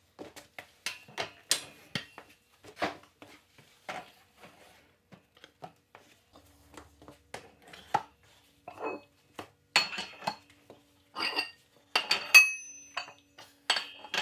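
Rubber bumper plates being slid and pushed onto a steel barbell sleeve in a power rack: a run of irregular metallic clinks and knocks, with louder ringing clanks in the last few seconds.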